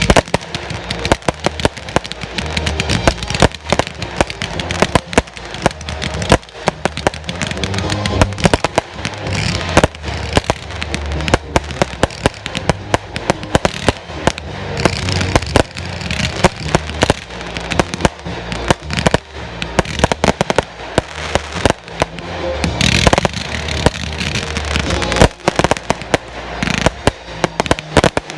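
Fireworks finale: a continuous, dense barrage of overlapping shell bursts, bangs and crackling, with no pauses.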